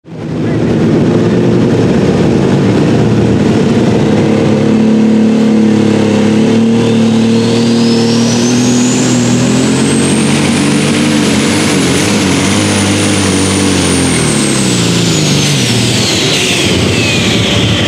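Light Super Stock pulling tractor's turbocharged diesel engine running flat out under load, with a high turbo whine that climbs about six seconds in, holds, and falls away near the end as the engine winds down.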